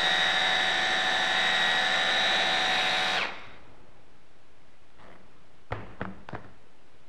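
Immersion blender motor, fitted on its chopper bowl, whirring steadily as it purees steamed sweet potatoes, then switching off a little over three seconds in. A few light knocks follow about two seconds later.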